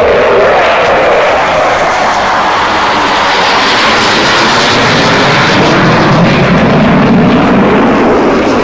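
Two Sukhoi Flanker-type twin-engine jet fighters passing overhead: a loud, continuous jet roar whose pitch falls as they go by.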